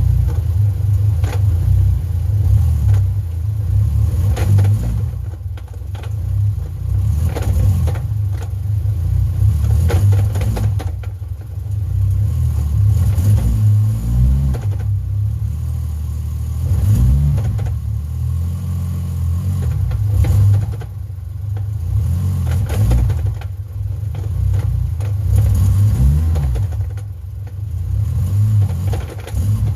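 A car engine revving and pulling through a V160 six-speed manual gearbox, the sound rising and falling every few seconds, with a rattle the owner places at the top of the gearbox where the shift rod joins the shifter. The rattle comes as the clutch is released onto the gas and fades once driving.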